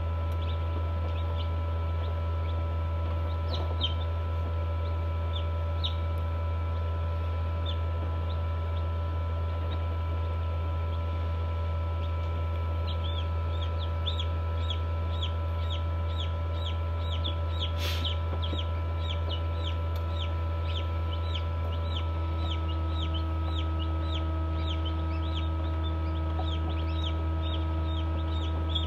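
Newly hatched chicks inside an incubator, peeping in short, high, falling notes: a few at first, then a rapid run of about three peeps a second from about halfway through. Under them runs the incubator's steady hum, which takes on deeper tones about three-quarters of the way through.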